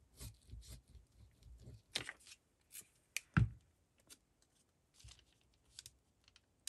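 Paper scraps rustling and being handled and pressed onto a collage on a tabletop, with scattered light taps and one sharper knock about three and a half seconds in.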